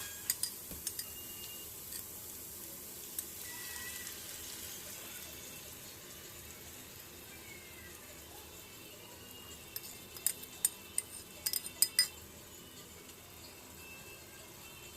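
Fish-sauce glaze poured into a hot pan of fried chicken wings and sizzling, the hiss fading over several seconds. Near the start and again about ten to twelve seconds in come a few sharp clinks of kitchenware.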